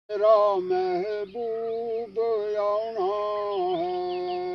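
A solo voice singing a slow song in long, held notes that slide from one pitch to the next, with a few faint bird chirps near the end.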